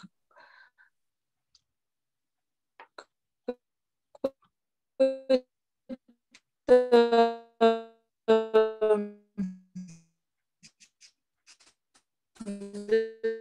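A woman's voice breaking up over a failing video-call connection: choppy fragments that freeze into short, held, buzzing tones and fade out, with gaps of silence between them, sounding almost like electric-piano notes.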